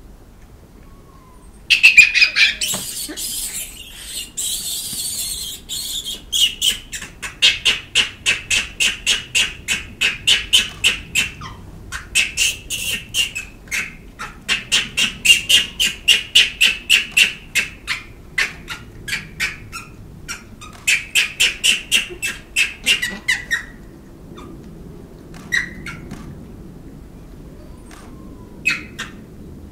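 Japanese macaques giving shrill calls. A loud drawn-out call comes about two seconds in, then bouts of rapid sharp cries, about three to four a second, which break off near the end.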